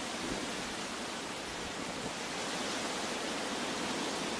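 Steady rushing water, an even hiss with no pitch or rhythm, like a rainforest waterfall or fast stream.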